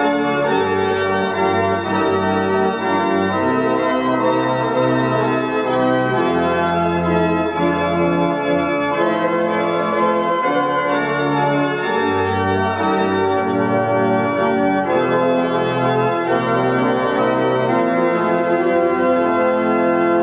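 Church organ playing a hymn tune in sustained chords that change about once a second.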